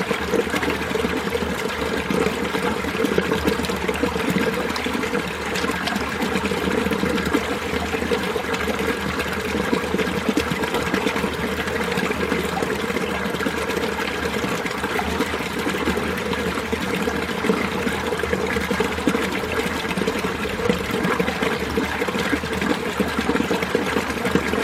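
Mountain stream running in winter: steady, continuous babbling and trickling water.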